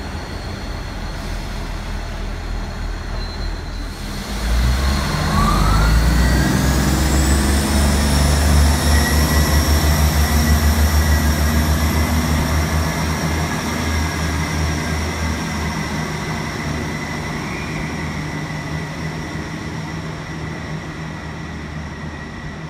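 South West Trains Siemens Desiro electric multiple unit accelerating away from the platform. About four seconds in, its traction motors start a rising whine of several tones that climb and then level off, over a low rumble with a fast throb, and the sound slowly fades as the train draws away.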